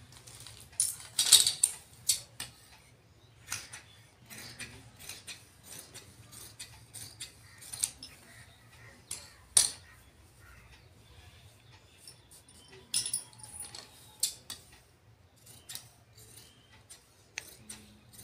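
Large tailoring scissors cutting through folded cotton fabric on a hard floor: a run of irregular snips and crisp scraping cuts, the loudest about a second in, with the cloth handled between them.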